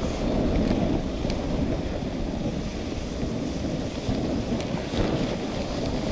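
Steady rushing noise of a dog sled gliding along a packed snow trail, its runners on the snow mixed with wind on the microphone, with a few faint ticks.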